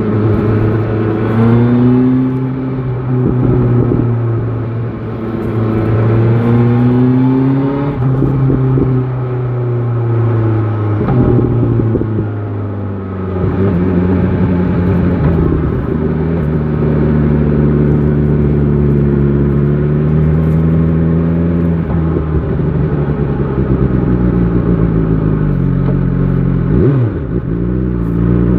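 BMW S1000 XR motorcycle's inline-four engine under way, heard from the rider's position: the engine note climbs and falls a few times as it pulls through the revs. It then settles into a steady cruise, and near the end the revs drop sharply.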